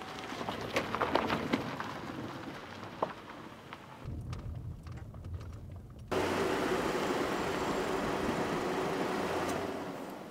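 A car driving: a low engine and road rumble, then about six seconds in a sudden change to a louder, steady rushing of road and wind noise, which fades near the end.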